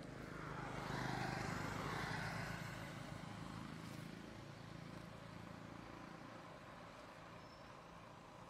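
A motor vehicle passing by: engine and road noise swells about a second in and fades away over the next few seconds.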